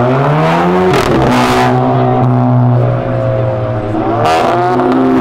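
Audi sedan's engine accelerating hard away from a standstill, its pitch climbing through the gears, with upshifts about a second in and again near four seconds.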